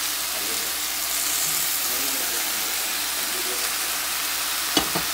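Meat strips for tibs with sliced onion, green pepper and tomato sizzling steadily in a frying pan, with a couple of sharp knocks near the end.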